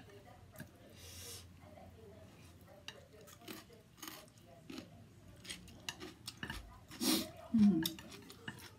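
Eating at a table: chopsticks and a plastic spoon click and scrape against a plate in scattered light taps, with mouth noises of eating noodles. About seven seconds in comes a louder breathy sound, then a brief low vocal murmur.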